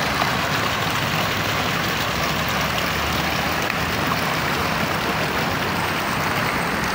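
Fountain jets splashing steadily into a stone basin, a continuous rush of falling water.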